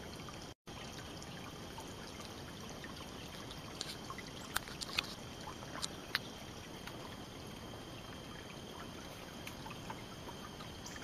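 Faint, steady outdoor background hiss from the backyard bear footage, broken by a few short high chirps and ticks around the middle.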